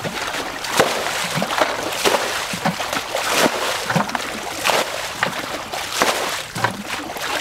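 Repeated splashing and sloshing of muddy water as a plastic bucket is scooped through a shallow pond and its water flung out, bailing the pond down, roughly one to two splashes a second.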